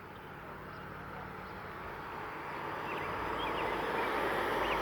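A car passing on the road, its tyre and engine noise rising steadily as it approaches, with no horn sounded.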